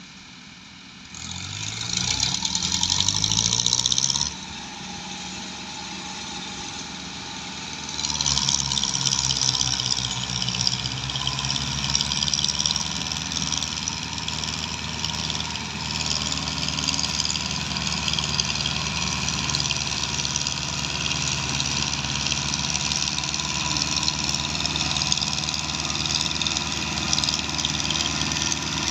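Diesel tractor engines revving up about a second in and easing off just after four seconds. From about eight seconds on they run hard and steady under heavy load, hauling a trolley piled with sugarcane.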